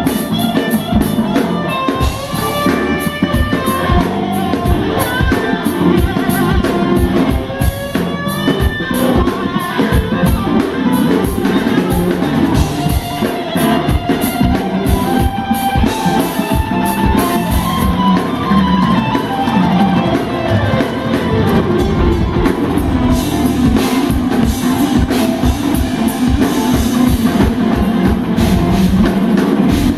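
Live rock band playing an instrumental: an electric guitar lead over bass guitar and drums, with a long sliding, bending phrase about halfway through.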